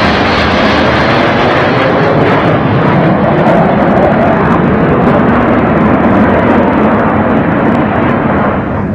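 Loud roar of US Navy Blue Angels F/A-18 Hornet jets flying low overhead, with a whine falling in pitch over the first couple of seconds as they pass. The roar eases slightly near the end.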